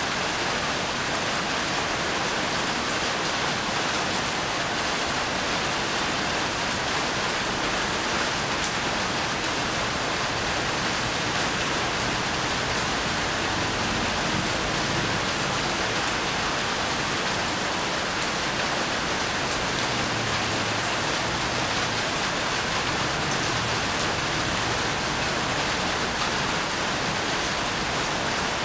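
Steady rain falling: a continuous even hiss with scattered faint drop ticks.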